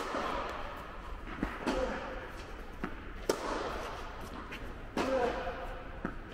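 Tennis rally: a ball struck back and forth by racquets and bouncing on the court, each hit a sharp pop that rings on in a large indoor hall. There are several pops, and the loudest comes about three seconds in.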